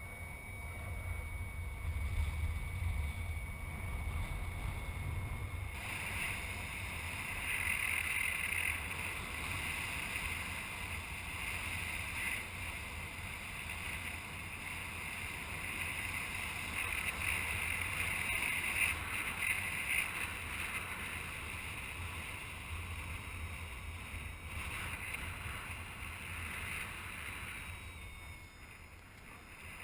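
Air rushing over the camera of a paraglider in gliding flight: steady wind noise with a low rumble, a brighter hiss coming up about six seconds in, easing a little near the end.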